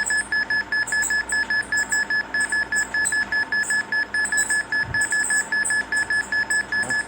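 Rapid, even electronic beeping: one high-pitched tone pulsing on and off about five times a second, without a break.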